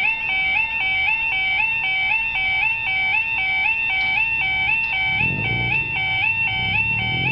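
Level crossing warning alarm (UK yodel-type) sounding continuously as the barriers come down: a two-tone electronic tone stepping from low to high about twice a second, signalling the crossing is closing for a train. A low rumble joins from about five seconds in.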